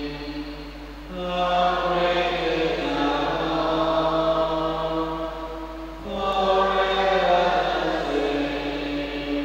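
Slow recessional hymn at the close of Mass, sung with long held notes. New phrases begin about a second in and again near six seconds.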